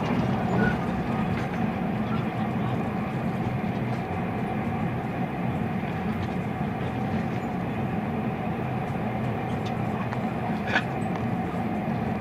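Inside a moving train carriage: a steady low rumble of the running train with a constant hum, a few faint clicks, and one sharper click about ten and a half seconds in.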